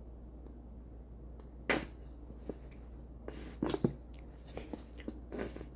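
A few sharp clicks and light scrapes of kitchen utensils and containers handled on a counter, after nearly two seconds of quiet. The loudest click is the first one.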